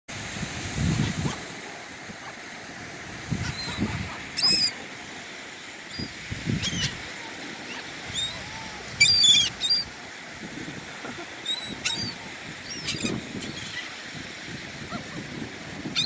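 A flock of gulls calling overhead, with short squawks every second or two and the loudest burst of calls about nine seconds in. Surf and wind hiss steadily underneath, with dull low rumbles of wind on the microphone.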